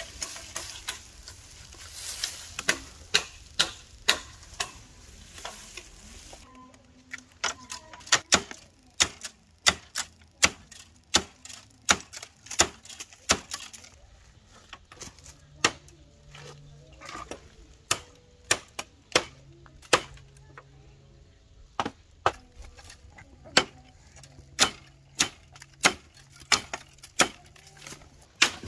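Machete chopping at green bamboo stems: sharp, separate strikes, about two a second.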